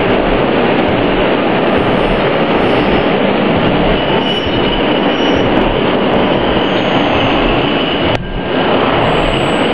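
Subway train running through the tunnel: a loud, steady rumble of wheels on the rails, with a brief drop near the end.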